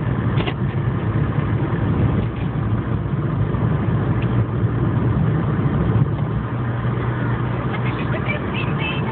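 Engine and road noise heard from inside a moving vehicle's cabin: a steady low drone with a short click about half a second in.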